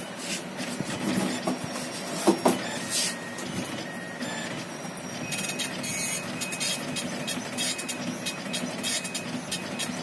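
Epson passbook printer, a dot-matrix impact printer, feeding in a passbook and printing. There are a few loud knocks about two seconds in. From about five seconds in comes the fast, evenly repeated chatter of the print head moving back and forth.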